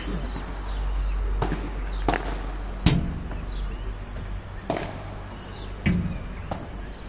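Padel rally: a ball struck back and forth with padel rackets and bouncing on the court and walls, about six sharp knocks at uneven spacing, loudest about three seconds in and again near six seconds.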